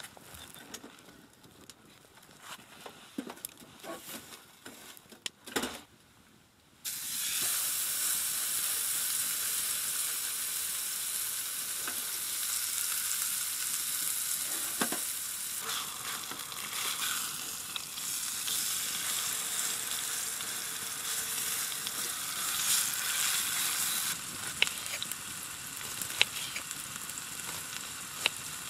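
Food frying in a hot pan. A steady sizzling hiss starts suddenly about seven seconds in, with occasional small pops. Before it, only a few light handling clicks.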